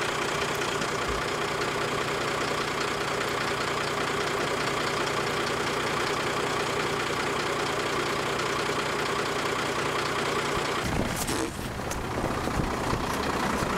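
A stopped truck's engine idling steadily. About eleven seconds in, a few sharp knocks break in and the sound briefly dips.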